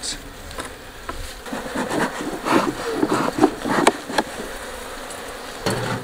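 A colony of African honeybees (Apis mellifera scutellata) buzzing steadily from an opened hive, with a cluster of short scrapes and knocks between about one and a half and four seconds in.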